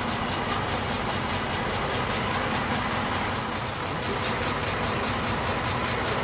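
MaK 240B diesel locomotive's engine running steadily at low revs, a constant low hum with an even mechanical noise over it.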